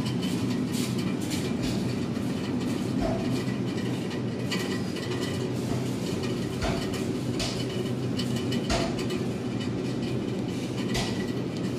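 Steady low hum and rumble of supermarket background noise, with a few light clicks scattered through it.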